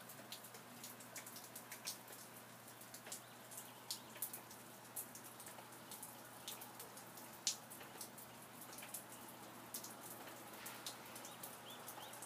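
Rain falling, with irregular sharp taps of single drops landing over a soft, steady hiss.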